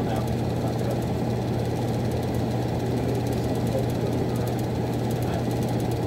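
Miller E2 furnace running: steady blower noise with a constant low hum underneath, unchanging throughout.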